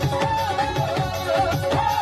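Live Punjabi folk band playing an instrumental passage: a wavering keyboard melody over a held note and a fast, even drum beat from dhol and tabla, about four beats a second.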